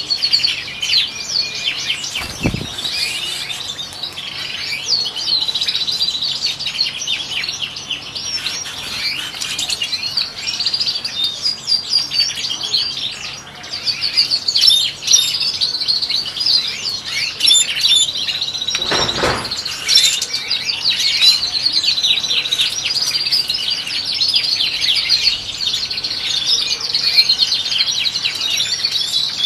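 European goldfinches twittering and singing without pause, a dense run of quick, high chirps and trills. Two soft thumps, about two and a half seconds in and again near nineteen seconds.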